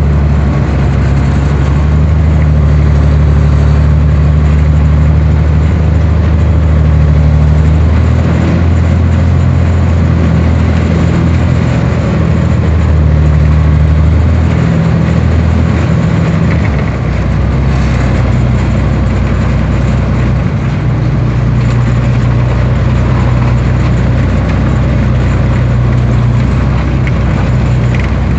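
BMP infantry fighting vehicle's diesel engine running loudly under way, heard from on top of the hull, with the rumble and rattle of the tracked vehicle moving over rough ground. The engine note changes about two-thirds of the way through.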